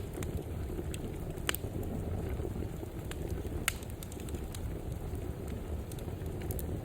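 Fireplace fire burning with a steady low roar and scattered sharp crackles and pops of burning wood, two louder pops about a second and a half in and near four seconds in.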